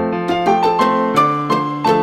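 Background music: a piano or electric piano playing a melody of single struck notes over held bass notes.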